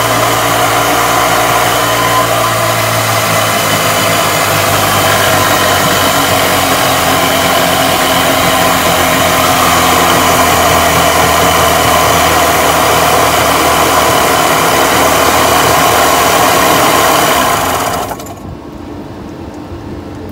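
Mercury outboard engine with its cowling off, running steadily while its Keihin carburettor is adjusted, then cutting off suddenly about 18 seconds in.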